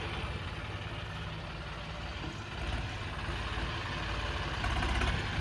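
Tractor engine idling steadily, a low, even rumble.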